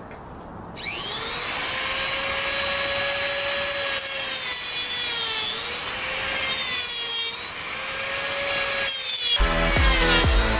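Corded rotary tool spinning up and running at high speed, its whine dipping in pitch now and then as it bites into a plastic speaker adapter ring to cut off the mounting brackets. The tool stops near the end and background music with a beat comes in.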